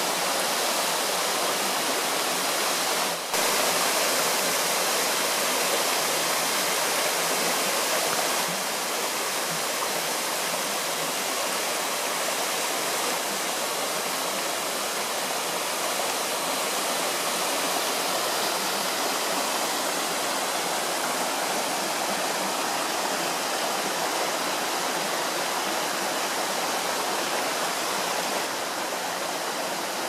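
Waterfall of mountain stream water falling over 30 feet onto rock, a steady, continuous rush.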